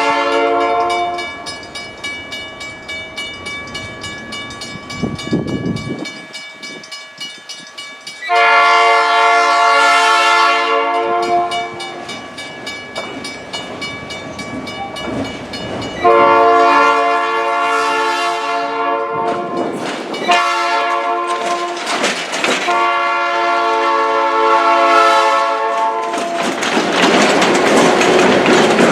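Freight locomotive air horn, a fouled Nathan P5 chime on a GP9, sounding several long blasts with clicking rail noise between them. Near the end the locomotive and its tank cars pass close, and the engine and wheels make a loud steady rumble.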